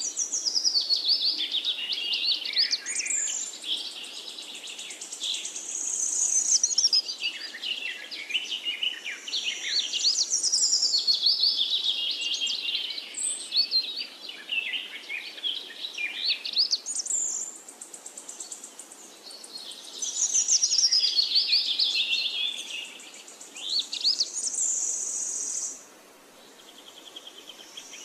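Birds chirping and singing in quick, high, gliding notes, in loud stretches of a few seconds each that briefly fall away near the end.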